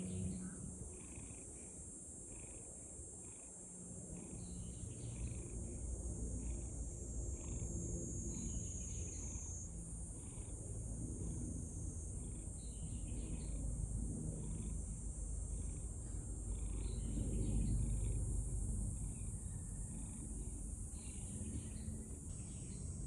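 Brown-and-white stray cat purring while being petted, a low rumble that grows louder about four seconds in.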